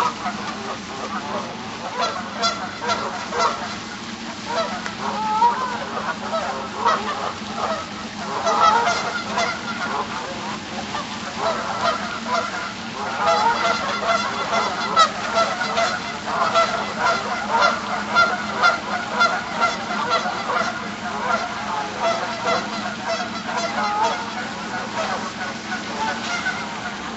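A flock of Canada geese honking, many short calls overlapping, coming thickest through the middle stretch.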